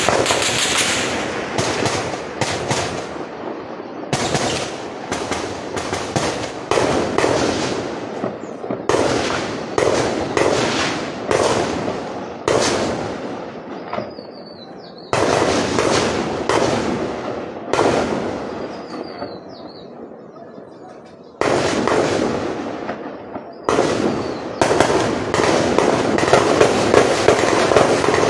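Gunfire in repeated bursts of rapid shots, each burst breaking in suddenly and echoing away over a second or two, with a new burst every few seconds.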